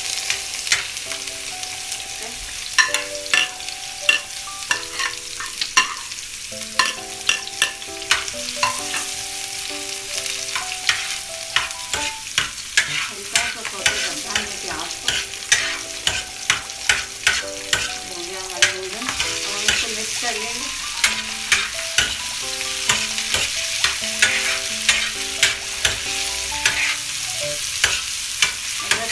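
Mutton liver and chopped onion sizzling in oil and butter on a flat iron tawa, stirred continuously with a metal spatula that scrapes and clicks against the griddle many times a second.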